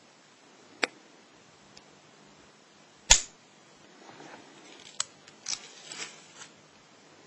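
Sharp clicks and small rattles of a lock and lockpicking tools being handled: a single click, then a much louder snap about three seconds in, then a quick cluster of smaller clicks.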